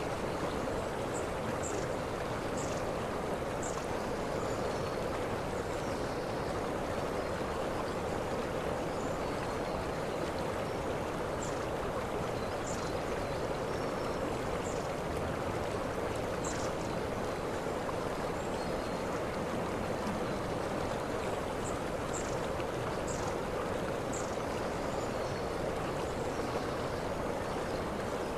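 Waterfall: water rushing and splashing steadily without a break. Short high chirps come in three runs, about a second in, around the middle and near the end.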